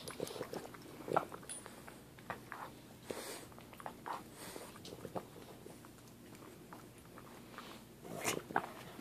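Boston terrier chewing a pig ear, an irregular run of gnawing crunches and teeth clicks; the loudest bites come about a second in and near the end.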